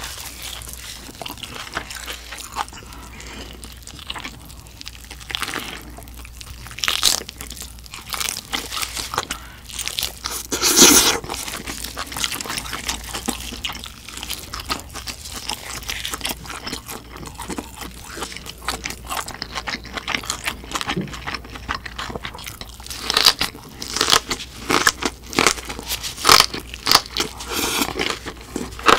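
Close-up eating sounds of a roasted pork knuckle (Schweinshaxe): meat and browned skin torn by hand, bitten into, crunched and chewed. One louder crunch comes about eleven seconds in, and a quick run of crunches near the end.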